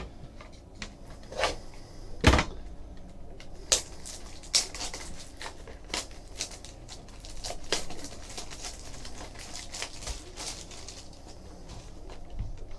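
Clear plastic shrink-wrap crinkling as it is peeled off a small cardboard trading-card box, with scattered clicks and knocks of the box being handled. The loudest knock comes about two seconds in.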